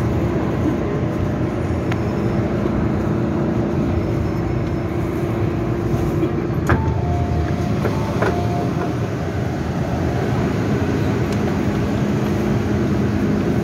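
Steady hum of an MTR M-train standing at a station platform with its doors open. A sharp click comes at about seven seconds, followed by two short, faint tones.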